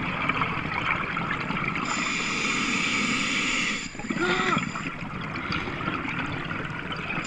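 Underwater ambience heard through a diving camera: a steady hiss and crackle of the sea, with a high steady whine from about two seconds in to about four seconds, then a short wavering low tone.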